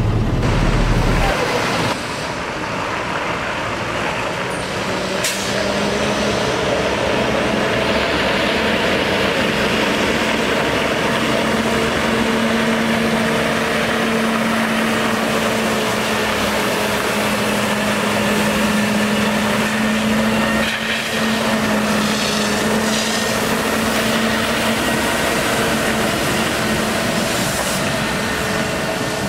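Caterpillar C7 diesel of a 2008 Ford F750 water truck running steadily as the truck moves in first gear, over the steady hiss of water jetting from its PTO-pump spray heads onto gravel. For about the first second the engine is heard as a low rumble from inside the cab.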